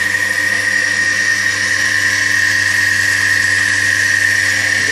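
Milking-machine vacuum pump, belt-driven by an electric motor, running steadily with a high whine over a low hum.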